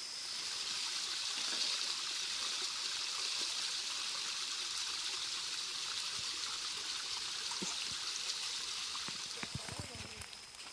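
Running, falling water making a steady rushing sound, easing off near the end with a few faint knocks.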